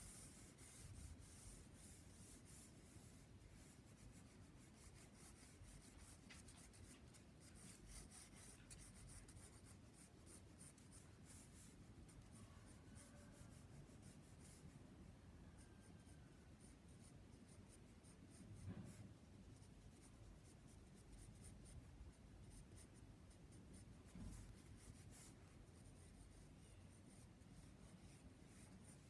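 Faint scratching of a green Castell graphite pencil drawing light curved strokes on sketch paper, in short, irregular strokes. Two soft bumps come in the second half.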